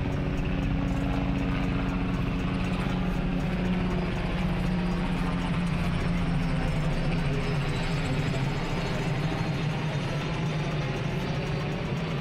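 A motor vehicle's engine running steadily, a low even hum.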